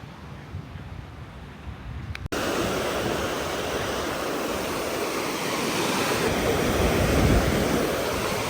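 Ocean surf washing onto a beach: a steady rush of breaking waves that swells around seven seconds in. It comes in at an abrupt cut about two seconds in, after a lower rumble of wind on the microphone.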